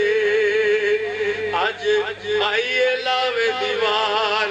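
A man singing devotional verse into a microphone, holding long notes with a wavering pitch and sliding between them.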